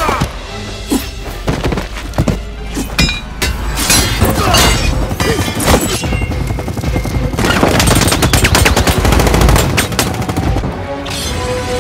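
Action-film fight soundtrack: rapid bursts of gunfire and sharp hits, thickest about two-thirds of the way through, over a bed of score music.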